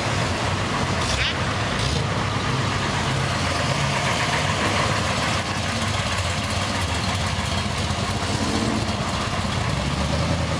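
Engines of classic and muscle cars running at low speed as a line of them rolls slowly past, giving a steady low engine note.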